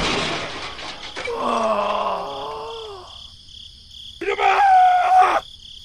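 A cartoon-style groaning voice effect that slides down in pitch, then a second, higher held voice sound near the end, over a steady high pulsing chirp in the background.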